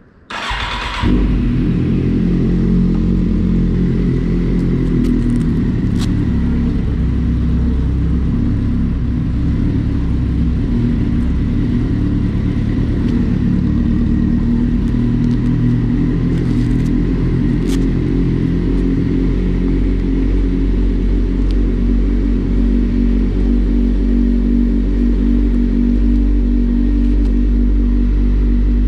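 Kawasaki Z750's inline-four engine, on an Akrapovic exhaust with its dB killer removed, starts on the button and catches within about a second, then settles into a steady idle.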